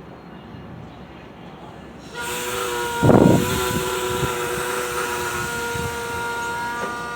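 Metra commuter train at the platform: about two seconds in, a sudden hiss rises with steady high whining tones that hold for several seconds. About a second later comes a brief loud low blast.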